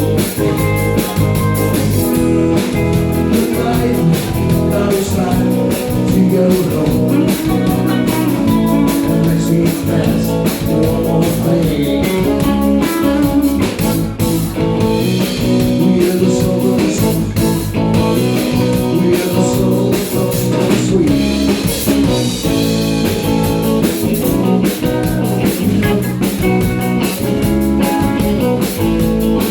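A live country band playing a steady-beat song, with guitar, drum kit and a singer.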